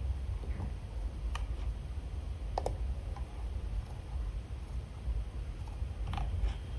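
A few slow, scattered keystrokes on a computer keyboard, single sharp clicks a second or more apart, over a low steady rumble.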